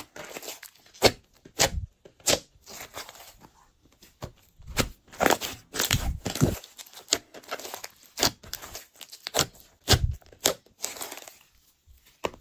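Glossy slime being kneaded, folded and stretched by hand: irregular sticky clicks, pops and wet smacks as it pulls apart and presses together, with a couple of short quiet pauses.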